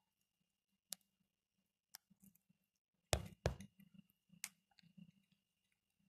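A parakeet pecking at puffed rice in a bowl: scattered sharp clicks and taps of its beak, with two louder knocks a little past the middle.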